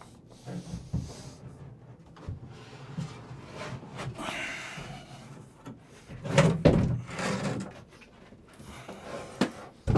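Knocks, scrapes and thumps of an Americast bathtub being shifted in its wooden-framed alcove on the plywood floor. The heaviest thumps come about six and a half seconds in, and a sharp knock comes near the end.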